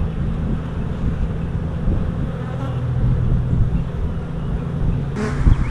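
Honeybees buzzing steadily around an open hive, with a brief knock near the end.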